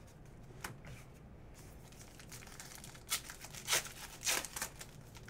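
Wrapper of a 2019 Donruss Diamond Kings baseball card pack being torn open and crinkled by hand, with a few sharp crackles about three to four and a half seconds in.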